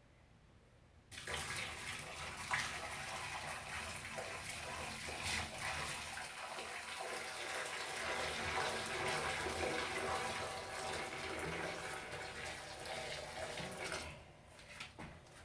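A large pot of hot water poured into a clogged toilet bowl, splashing and gushing steadily. It starts about a second in and stops shortly before the end.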